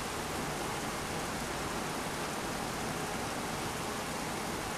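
Heavy rain falling steadily during a severe thunderstorm, an even, unbroken hiss with no thunderclap.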